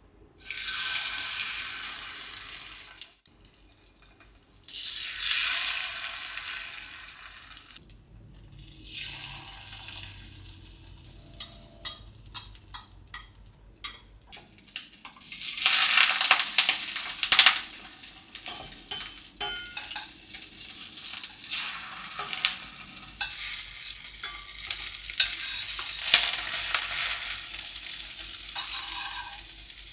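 Shrimp-and-egg pancake frying in oil in a pan. In the first ten seconds the sizzling swells up and fades away three times, then comes a run of light clicks, and from about fifteen seconds in there is steady sizzling with scattered taps.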